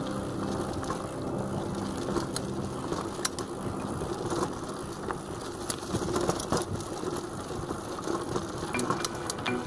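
Mountain bike rolling fast over a rough dirt and gravel track: a steady rush of tyre noise on loose ground with irregular clicks and rattles from the bike's chain and frame.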